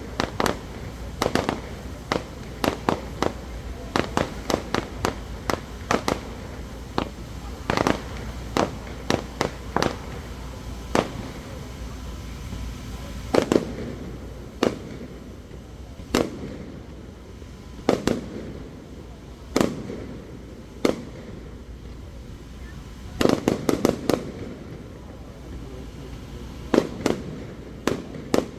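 Aerial fireworks shells bursting: a rapid series of sharp bangs for about the first ten seconds, thinning to single reports every second or two, with a quick cluster of bangs about two-thirds of the way through.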